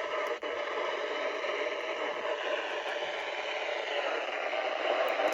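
Steady static hiss from a weather radio receiver on a weak NOAA Weather Radio signal, with a brief dropout about half a second in.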